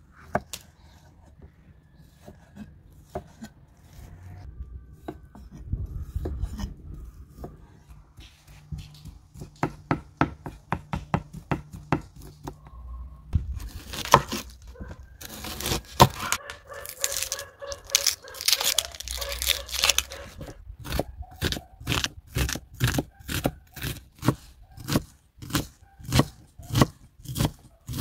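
Chef's knife cutting on a thick wooden log-slice board: scattered cuts through raw chicken breast, then a crackling stretch as the papery onion skins are cut and torn off. From about three quarters of the way in come steady knocks on the wood, about two a second, as the onion is diced.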